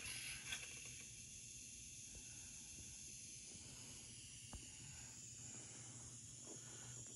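Faint steady steam hiss from a model steam locomotive's DCC sound decoder, played through its small onboard speaker, with a low steady hum underneath and a faint click about four and a half seconds in.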